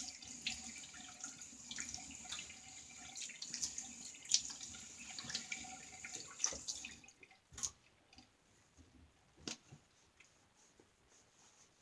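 Tap water running into a sink with splashing as a shaver rinses up after the shave; the water stops about seven seconds in, followed by two sharp clicks.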